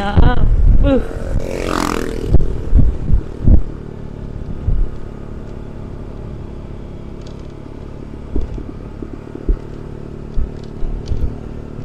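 Honda ADV 160 scooter's single-cylinder engine running at a steady cruising speed while riding. There are several low thumps between about two and four seconds in.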